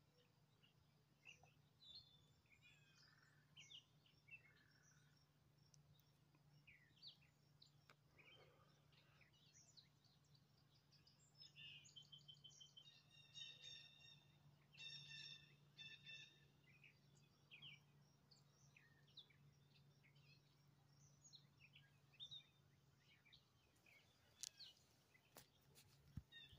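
Faint birds chirping and calling in quiet open air, with a louder run of repeated calls in the middle. A faint steady low hum runs underneath.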